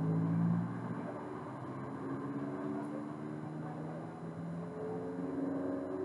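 Street traffic, with a vehicle's engine rising slowly and steadily in pitch as it accelerates over a low steady hum.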